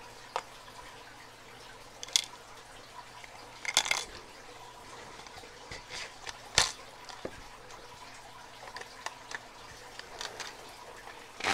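Scattered small clicks and rustles of a clear plastic tool case as a tool is packed into it. The louder clicks fall about two, four and six and a half seconds in.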